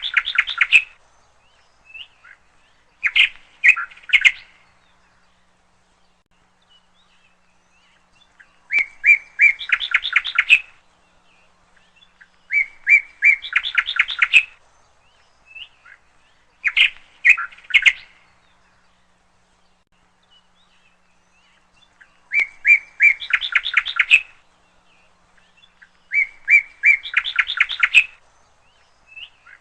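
A small songbird singing the same short phrase over and over, about every four seconds: a few even notes followed by a quick run of higher notes.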